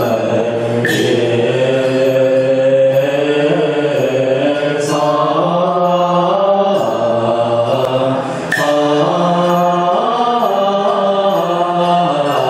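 Buddhist liturgical chanting led by a monk on a microphone: a slow, melodic line of long held notes. Short sharp strikes cut in three times: about a second in, near the middle, and a little past eight seconds.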